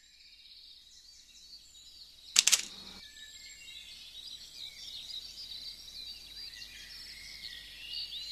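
Several songbirds singing, a busy chorus of chirps and whistles that fades in and grows fuller. A sharp double click about two and a half seconds in.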